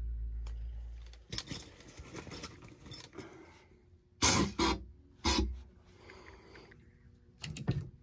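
Tools and gear being handled: rustling and clicks with several loud rattling clanks, three grouped around the middle and one near the end. A low steady hum fades out about a second in.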